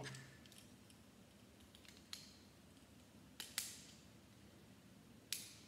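Lego plastic pieces clicking as they are handled and pressed together: a few sharp, small clicks over near silence, the loudest two close together about three and a half seconds in and another near the end.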